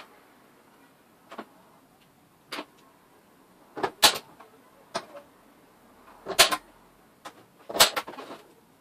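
Centre punch being struck into a steel panel to mark hole centres: a series of about ten sharp metallic knocks at uneven intervals, some in quick pairs, the loudest about four, six and a half and eight seconds in. Loud enough to leave the ears ringing.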